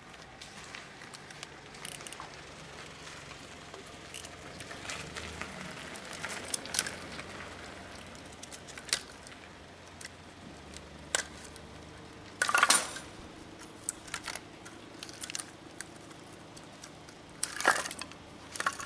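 Firewood and metal fire-pit parts being handled: scattered knocks and rustling, with two louder clatters about twelve and a half and seventeen and a half seconds in.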